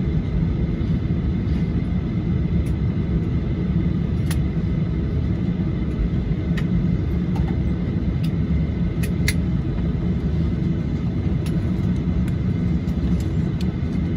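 Cabin noise of a Boeing 737-800 taxiing, heard from a window seat beside the wing: the CFM56-7B engines idle with a steady low rumble and a thin steady whine, with a few light clicks.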